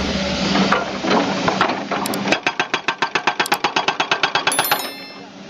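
Hydraulic breaker (rock hammer) on a crawler excavator hammering. After about two seconds of dense clatter it settles into a rapid, even pounding of about ten blows a second, which fades away near the end.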